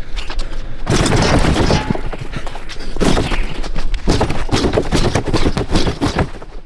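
Rapid flurry of punches and slaps landing on a freestanding man-shaped punching dummy, a dense run of sharp smacks starting about a second in.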